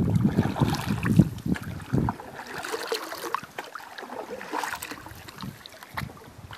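Canoe paddles stroking through calm water, with swishing and small splashes and drips. Wind rumbles on the microphone during about the first two seconds.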